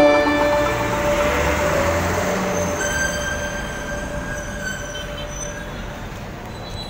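Road traffic noise from a busy city street, with a few steady high-pitched tones that slowly fade away.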